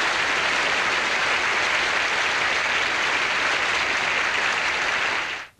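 Studio audience applauding, a steady dense clapping that fades out abruptly just before the end.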